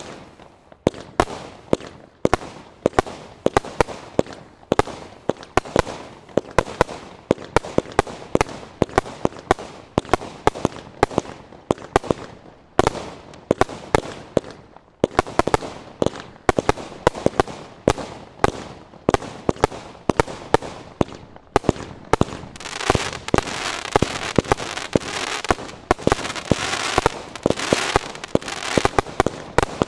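Oblivion firework barrage cake firing a rapid run of shots and bursts, several bangs a second. From about two-thirds of the way in, a denser crackling fills the gaps between the bangs.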